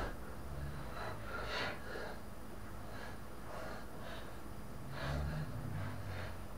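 Short, irregular scraping and knocking as a hand tool works caked grass clippings off the underside of a lawn mower deck, with a louder cluster of scrapes about five seconds in.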